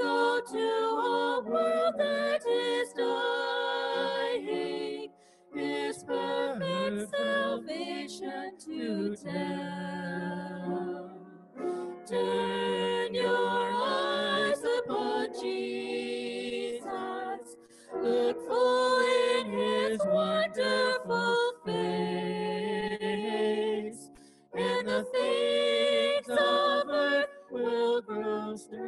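Voices singing a hymn over a Zoom call, in sung phrases of about six seconds with short breaks between them.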